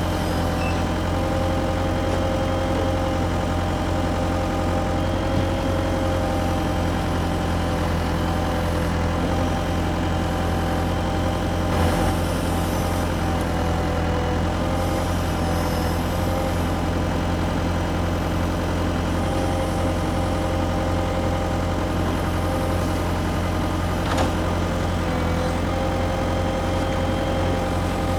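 Radio-controlled model excavators running: a steady engine-like drone with a whine, broken by a short knock about halfway through and another near the end.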